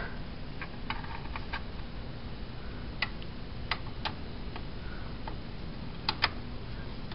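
Scattered light clicks and taps of metal parts as a new steering pinion gear is fitted by hand onto a riding mower's steering shaft, with two sharper clicks about six seconds in.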